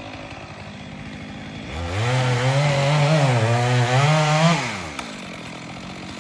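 Chainsaw idling, then revved up about two seconds in and held high for about three seconds, its pitch dipping and rising, before dropping back to idle.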